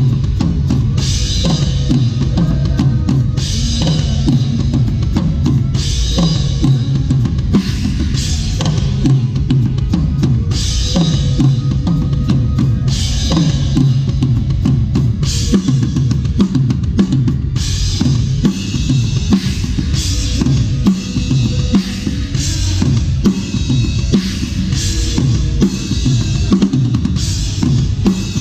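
Acoustic drum kit played in a steady groove, with bass drum and snare and crash cymbals struck about every two seconds. The cymbal work grows busier in the second half.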